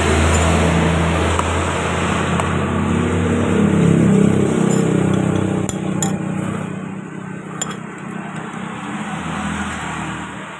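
A motor vehicle's engine running close by, loudest about four seconds in and fading after that. A few light clinks of a fork against a ceramic bowl come in the second half.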